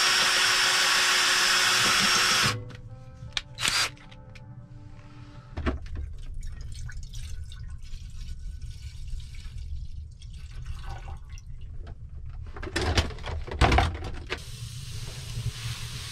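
Cordless drill drilling into a sheet-steel wood stove for about two and a half seconds, then a short second burst. After that, water pours from a plastic bottle into a small metal pot, with a couple of louder knocks a little before the end.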